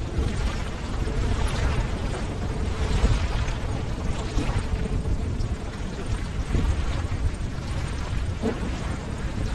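Ocean waves: a continuous deep wash of surf that swells louder now and then, loudest about three seconds in.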